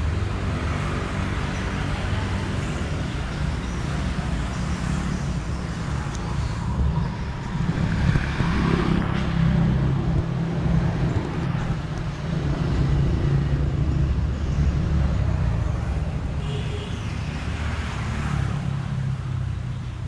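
Road traffic: a steady low engine rumble from motor vehicles, a little louder through the middle.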